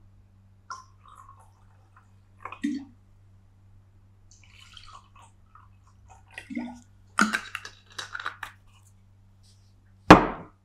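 Water poured from a bottle into glasses, with small knocks and handling noises of glass and bottle. One sharp knock near the end, over a steady low hum.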